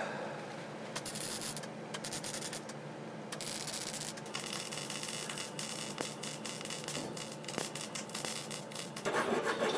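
MIG welder tack-welding mild steel box section: the arc crackles in two short bursts, then in a steady run of about five seconds.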